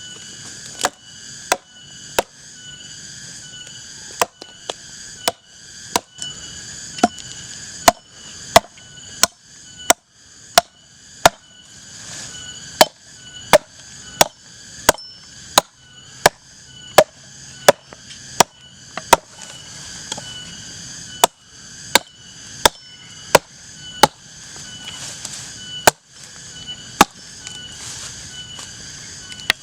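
Repeated chopping of wood with a blade: sharp, clean strikes in an even rhythm, a little over one a second.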